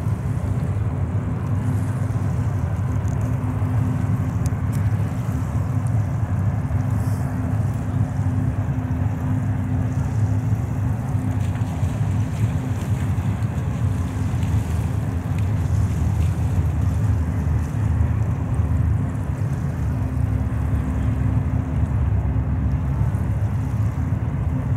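Distant diesel freight locomotives working along a train across the river: a steady low engine drone at an even pitch, with some wind on the microphone.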